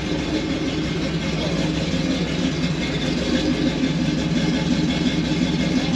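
Early-1950s Ford F-series pickup's engine running steadily at low revs.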